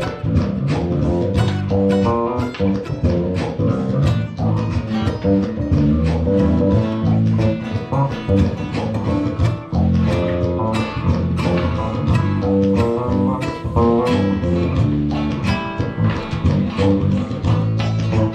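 Live instrumental music: plucked guitar lines over a low bass line, with no singing.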